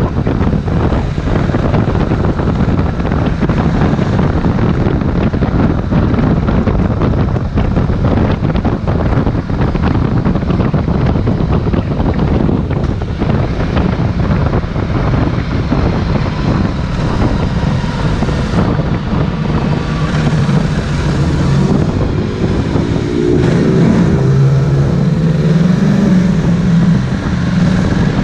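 Ducati Multistrada 1260 S's L-twin engine running under way, heard under heavy wind buffeting on the microphone. Near the end the engine note rises as the bike accelerates.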